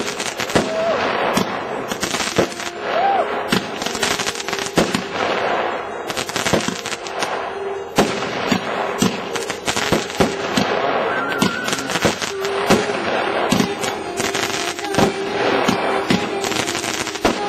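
Aerial fireworks display: shells bursting one after another in a dense, unbroken run of loud bangs and crackles.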